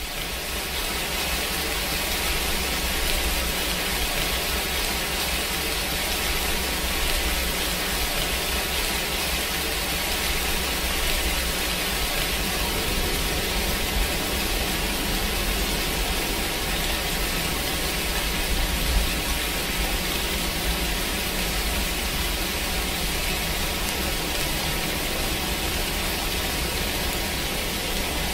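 Steady, even rain-like hiss of a subliminal masking track, swelling up in the first second and then holding level; the layered affirmations it covers are not separately audible.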